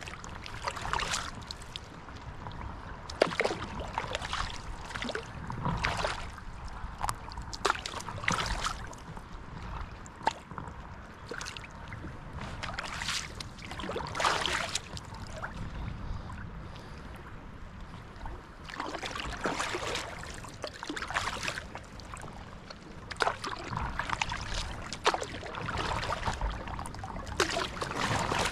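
Paddle strokes in water from a stand-up paddle board: a splash and drip about every one to two seconds.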